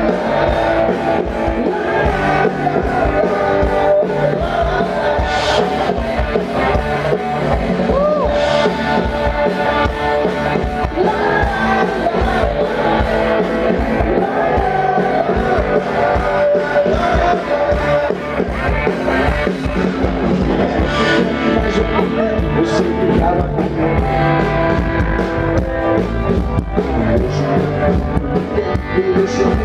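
Live rock band playing, with guitar and a singing voice.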